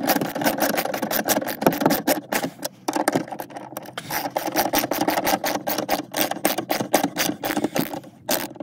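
Socket ratchet wrench clicking rapidly as it spins a nut down a bolt through an aluminum backing plate, in quick runs with a few short pauses.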